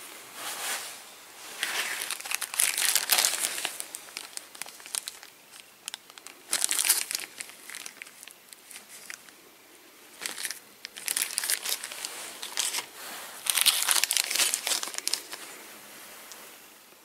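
Clear plastic bags of engine gaskets crinkling as they are handled, in several irregular bursts a second or two long with quieter pauses between.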